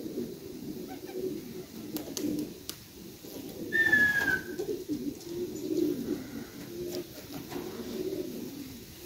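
Racing pigeons cooing steadily in a loft. About four seconds in, a short high whistle slides downward in pitch.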